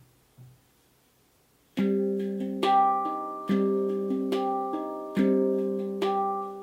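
Hang (steel handpan) played with the hands: single notes struck one after another, each ringing on and slowly fading into the next. After a couple of faint taps and a moment of near silence, the first note comes in about two seconds in.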